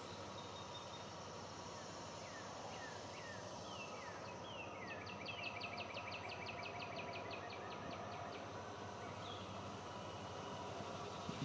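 Bird calls over a steady low outdoor hum: a few short downward-sliding chirps, then a fast trill of about six notes a second lasting some three and a half seconds. The low hum is a distant diesel train approaching.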